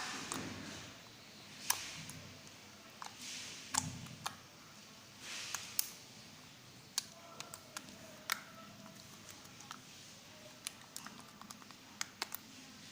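Clear jelly slime being stretched and squished by hand, giving off irregular sharp clicks and small pops with soft squelchy swells between them.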